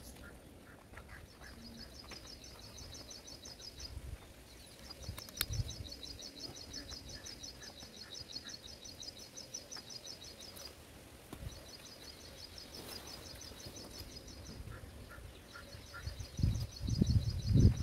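High, rapid chirping trill from a small animal, repeating in bouts of a few seconds, over faint outdoor background noise, with low thumps near the end.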